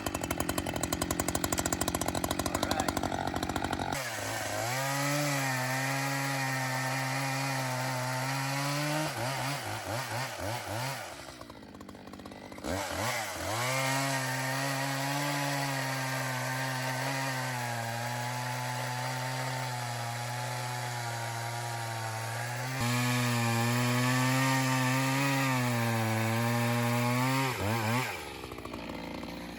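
Echo CS-620 two-stroke chainsaw running at full throttle. It revs high for a few seconds, then holds a steady, lower pitch that sags and wobbles as though pulling through wood. It eases off briefly about a third of the way in, runs again under load, and drops back near the end.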